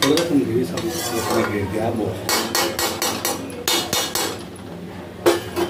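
Metal spoon clanking and scraping against a steel kadhai while stirring sabudana khichdi. The taps come in quick runs: several in a row a little past halfway, another short run soon after, and two more near the end.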